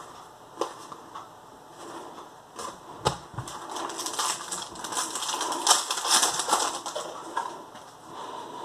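Magic: The Gathering cards being leafed through and handled: dry flicks and slides of card against card, with a knock about three seconds in and a denser run of flicking and rustling midway.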